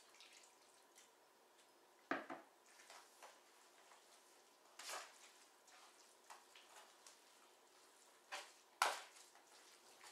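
Metal spoon stirring sauced pulled pork in an aluminum foil catering tray: a few faint scrapes and clinks, the loudest about two seconds in and near the end.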